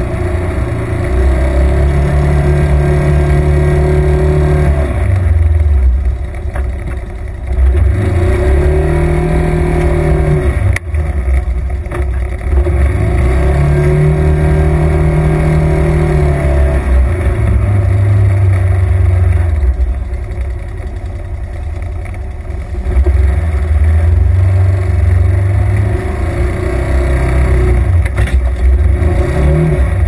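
Side-by-side UTV engine heard from inside the open cab, driven with changing throttle. Its note climbs and falls repeatedly, easing off about five, twenty and twenty-nine seconds in.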